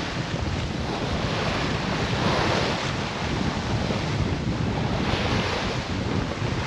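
Water rushing and hissing along the hull of a heeled sailing yacht as it drives through the waves, with wind buffeting the microphone throughout.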